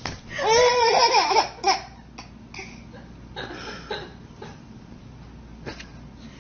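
A baby laughing: a loud burst of laughter in the first second and a half, then a few shorter, softer giggles that die away.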